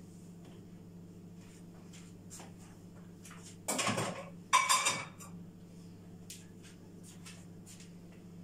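Dishes clattering in a kitchen: two short rattling clatters of plates and pans being handled and set down about four seconds in, with a brief ring in the second, over a steady low hum and faint small clinks.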